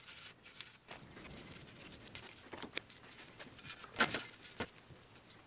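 Gloved hands working a wet salt, flour and vinegar paste over a copper cylinder: faint rubbing and scattered small taps, with a sharper knock about four seconds in as the cylinder is handled.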